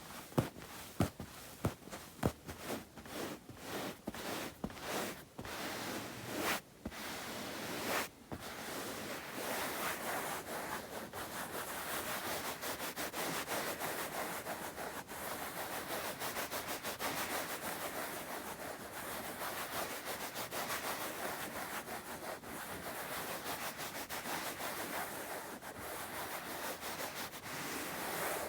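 Bare hands close to the microphone: separate taps for the first eight seconds or so, then palms rubbing together quickly and continuously.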